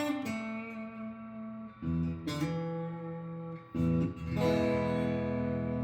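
Electric guitar, a Telecaster with humbuckers, strumming three chords in turn, each left to ring out for a second or two. Both pickups are on, with the neck humbucker split to its adjustable-pole coil and the bridge humbucker to its slug coil.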